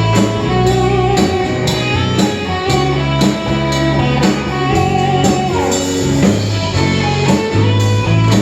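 Live worship band playing an instrumental passage between sung lines: guitar with drum kit keeping a steady beat.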